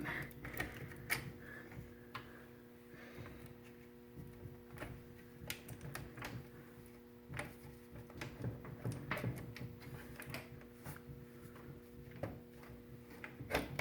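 Irregular light clicks and knocks of an R9 390X graphics card being worked loose and pulled out of a PC case's PCIe slot, over a steady low hum.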